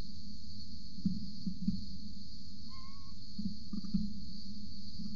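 A steady high insect chorus over a low rumble with a few soft thumps. One short whistled bird note sounds about three seconds in. No falcon calls are heard.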